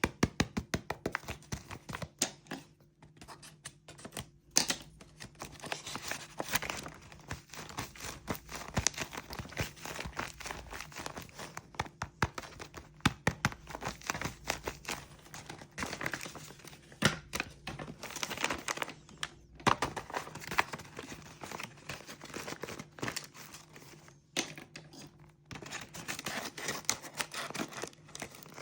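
Packaging material being crinkled and torn by hand, a dense run of rustles and small clicks with a few brief pauses.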